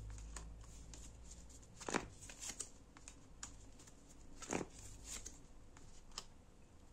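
Faint handling of fortune-telling cards: scattered soft flicks and taps as cards are drawn and turned over, the loudest about two seconds in and again about four and a half seconds in.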